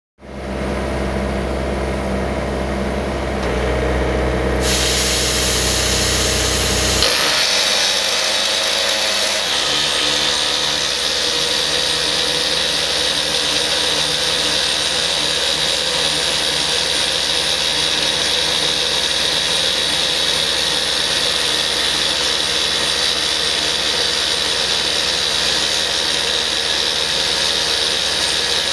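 Excavator-mounted self-contained rock drill attachment drilling into rock: a loud, steady mechanical din with a hiss of flushing air. For the first several seconds a deeper, engine-like sound dominates. About seven seconds in it changes to an even, harsher drilling noise that holds steady.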